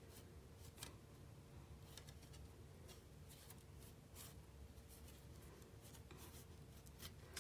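Near silence: a few faint rustles and light taps of cardstock being handled while the glued pieces are held together, over a faint steady hum.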